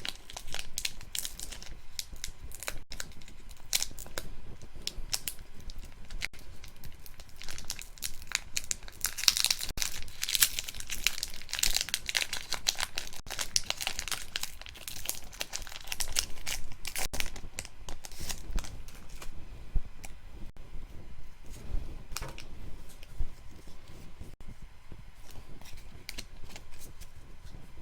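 Foil booster pack wrapper crinkling and being torn open by hand, with a dense run of crackles that is loudest about a third of the way in.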